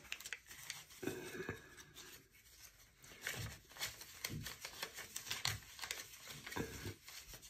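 Paper banknotes rustling softly as a stack of bills is handled and shuffled, with faint crinkles of a plastic binder pouch.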